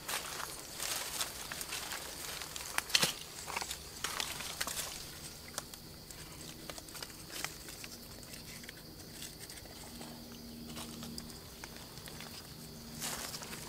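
Dry leaf litter rustling and crackling under bare feet as a person steps and crouches, with a sharp crack about three seconds in, then lighter, sparser rustling from hand movements. A steady high-pitched drone sits underneath throughout.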